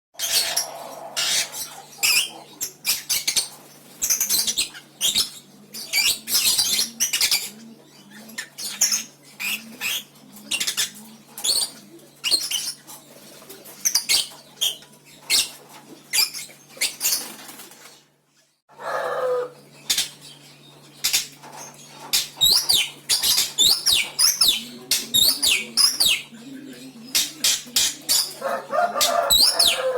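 Lovebird singing a long chattering song of rapid high chirps and trills, packed with varied learned phrases. A steady low hum runs underneath, and the song breaks off briefly about two-thirds of the way through.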